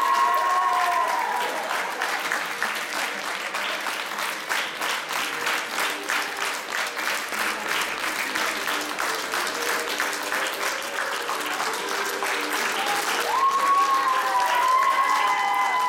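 Audience applauding steadily, with a high melody heard over the clapping at the start and again near the end.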